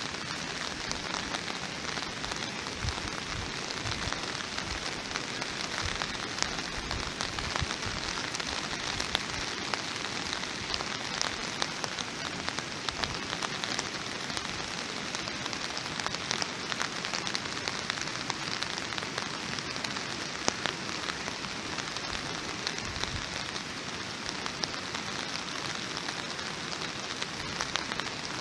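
Steady rain falling on a surface: a dense, even hiss with many separate drop ticks scattered through it.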